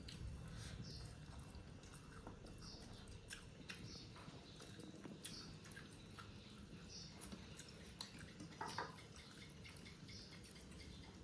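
Faint, close mouth sounds of someone eating rice with the fingers: soft chewing with small wet smacks and clicks scattered throughout.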